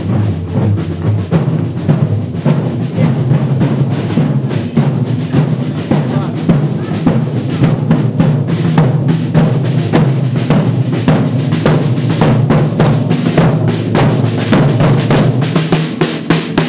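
Marching snare drums playing a rapid, steady street-procession beat over the continuous drone of bagpipes. The drumming grows louder near the end as the drums come close.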